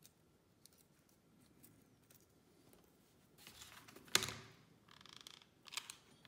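Handling of small cardboard pieces and a hot glue gun on a wooden table: faint clicks, then a rustle and a sharp knock about four seconds in as the glue gun is picked up, followed by more rustling and a click.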